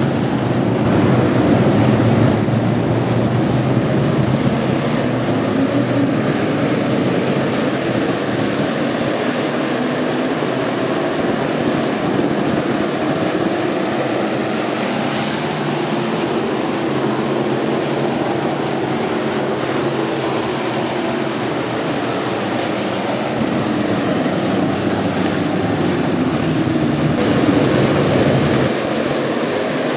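Several dirt-track stock cars' engines running together as the field circles the track, a loud steady drone of many engines at once. The level dips slightly near the end.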